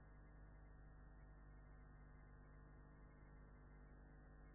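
Near silence: a faint, steady low hum with hiss. No aircraft sound is heard.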